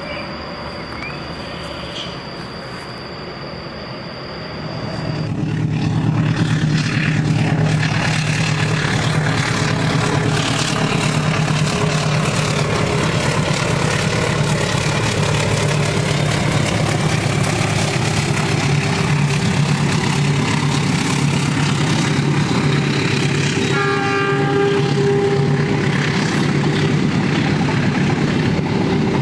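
Quiet ambience with a steady high hum, then about five seconds in the loud, steady rumble of a KAI diesel-electric locomotive's engine passing close, followed by its passenger coaches running along the track. A short burst of high tones sounds near the end.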